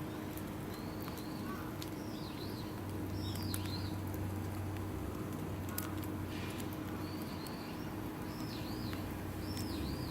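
A small songbird calling: two short series of high chirps, each a few arching notes, over a steady low hum.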